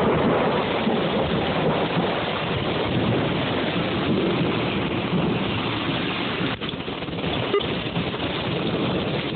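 Severe thunderstorm wind and heavy rain: a dense, steady rush that swells suddenly at the start and stays loud.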